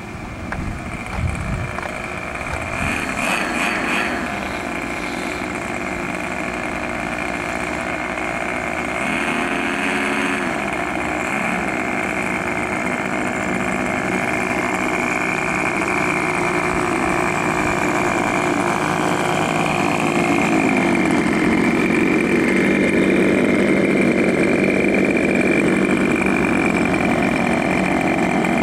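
The twin engines of a Hangar 9 B-25 Mitchell model warbird run steadily during a taxi test. Their pitch shifts about nine seconds in and again around twenty seconds in as the throttle is worked, and they run a little louder near the end. The owner reports the two engines are hard to synchronize.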